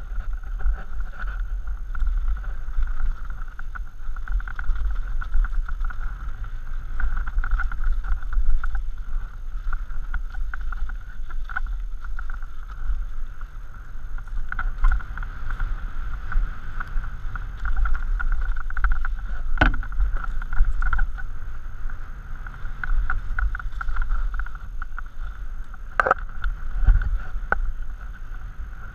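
Mountain bike ridden fast down a dirt singletrack, heard from a helmet camera: wind rumble on the microphone over the steady rattle of the bike, with two sharp knocks, about two-thirds through and again near the end.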